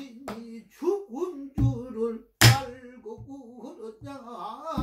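Pansori singing, a single voice wavering and sliding in pitch, accompanied by a buk barrel drum struck twice near the middle, about a second apart, each stroke a deep thump.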